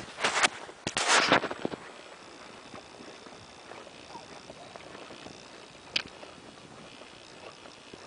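Rustling of dry grass and brush in two loud bursts within the first second and a half. After that a low steady background, broken by one sharp click about six seconds in.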